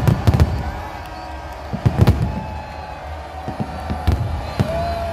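Aerial fireworks shells bursting in sharp bangs: a quick cluster at the start, two more about two seconds in, then fainter scattered pops.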